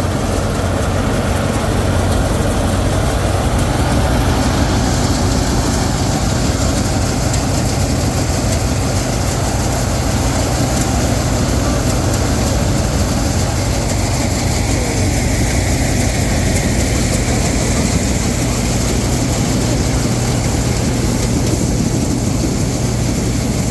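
Combine harvester running steadily under load, a constant low engine drone with a broad mechanical hiss of the threshing machinery.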